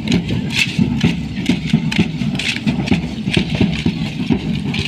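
A troupe of folk dancers' rattling and stamping in a steady rhythm, crisp shaken accents over low thuds of feet on pavement, about two or three beats a second.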